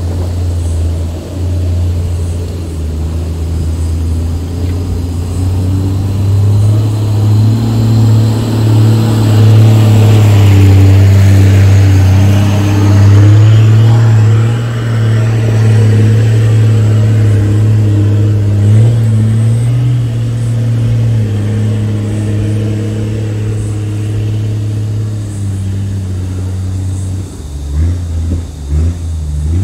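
Engine of a lifted four-wheel-drive driving slowly up a rocky track past the camera: a steady low rumble, loudest from about eight to fifteen seconds in as it passes close, then easing off as it moves away.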